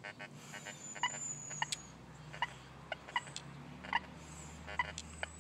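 Fisher F75SE metal detector sounding a string of short, sharp beeps at about two a second as its coil is swept back and forth over a large iron nail and a silver coin.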